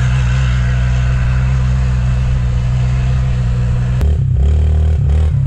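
Drone propellers humming steadily. About four seconds in this gives way abruptly to an ATV engine running as the four-wheeler rides up the dirt trail.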